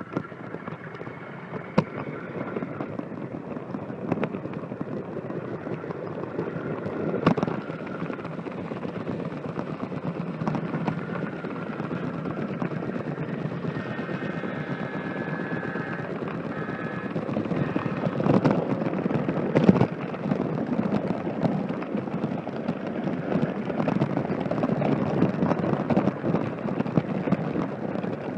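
HO scale model train running along its track, heard close up from a camera riding on the train: a steady rattling rumble of wheels and motor, with occasional sharp clicks and a brief high whine about halfway through.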